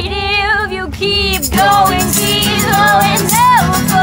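Two women singing a pop song live together in sustained, gliding notes. About a second and a half in, a shaker starts rattling in a fast, even rhythm under the voices.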